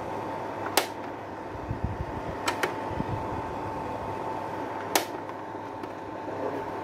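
Braun slide projector running, its cooling fan giving a steady whirring hum. Sharp clicks come from the projector as it is handled: one about a second in, a quick double click at about two and a half seconds, and another at about five seconds.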